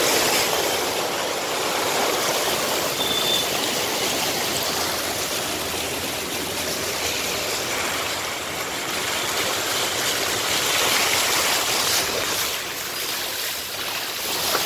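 Floodwater churned up by a car driving through a flooded street: a steady rush and swish of water washing along the side of the car.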